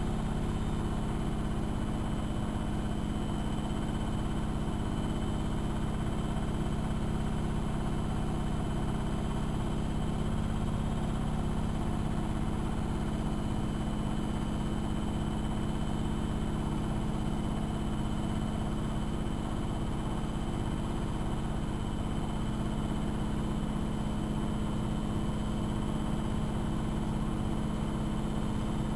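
AEG Electrolux Lavamat L6461 washing machine running without a break: a steady motor hum with a faint, high, constant whine above it.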